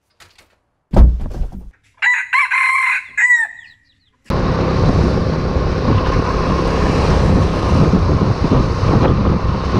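A sudden thump about a second in, then a rooster crowing in the channel's logo intro. From about four seconds in, the steady noise of a motor scooter being ridden down a road takes over.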